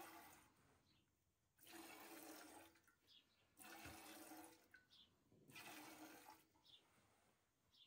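Faint milk streams hissing into a stainless steel pail as a cow's teat is hand-stripped, four pulses of about a second each, roughly two seconds apart: the last milk being worked out of the quarter.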